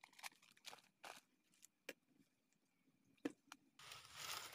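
Near silence broken by soft rustles and light clicks of someone moving in tall grass, with a sharper click about three seconds in and louder, steady rustling near the end as he moves close by.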